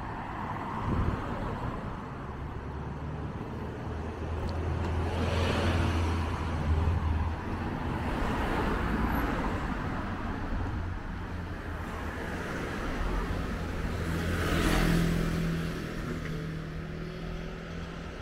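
Street traffic: a few cars driving past one after another, each swelling and fading with engine and tyre noise over a steady background hum.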